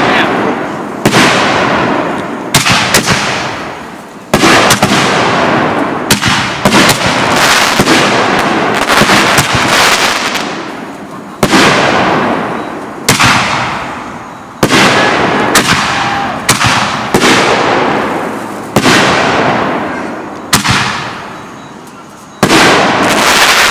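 Consumer firework mortar shells bursting one after another in quick succession, a sharp bang about every one to two seconds, each fading out in a noisy crackling tail.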